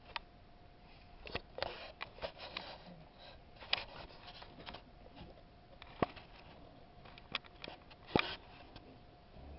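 Scattered light clicks and knocks of handling, a few sharper taps among them, over a faint steady hum.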